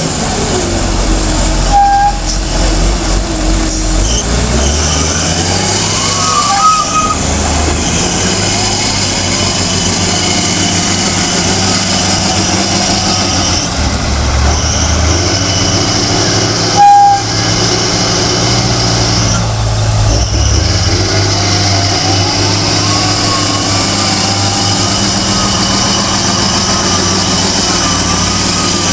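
Lonking CDM833N wheel loader's diesel engine running and revving up and down as it digs, lifts and drives, with a whine that rises and falls. Two short beeps sound, one about two seconds in and a louder one about seventeen seconds in.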